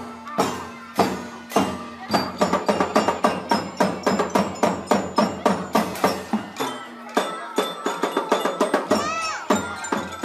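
Drum band playing a fast, even drum beat with a ringing melody over it.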